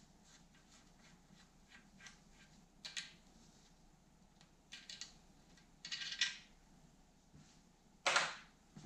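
Scattered light clinks and scrapes of small metal parts and hand tools being handled while dismantling a dirt bike's steering head, with a louder short clatter about eight seconds in.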